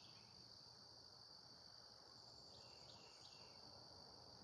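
Faint, steady high-pitched insect chorus, with a few faint short chirps about halfway through.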